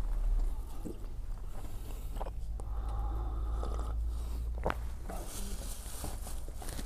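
Chewing and biting on a chocolate-coated pastry tube filled with curd, with a few short clicks and a sip of coffee around the middle, over a low steady hum.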